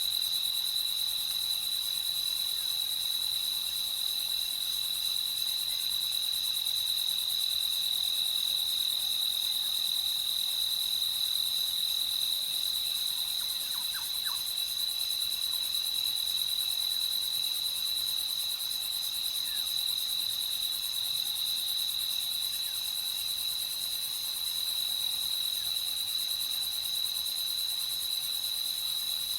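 Night chorus of crickets: a steady, unbroken high trill at an even level, with a faint brief chirp from something else about halfway through.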